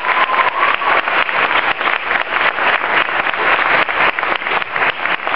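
An audience applauding: many claps overlapping into a dense, steady clatter.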